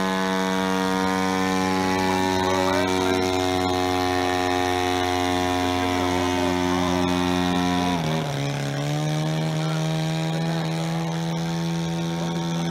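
Engine of a full-size radio-controlled Demoiselle replica aircraft running steadily in flight, its propeller-driven note dropping sharply about eight seconds in, then holding lower.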